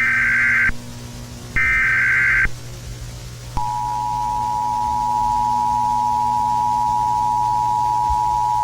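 Emergency Alert System header: two one-second bursts of SAME digital data tones, a second apart, then the two-tone EAS attention signal starts about three and a half seconds in and holds steady.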